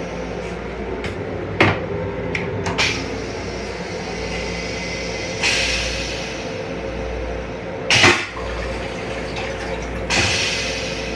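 M7 electric rail car running, heard from inside its small restroom: a steady hum and rumble with a few sharp knocks and rattles in the first three seconds. Three hissing rushes come about five, eight and ten seconds in, the middle one loudest.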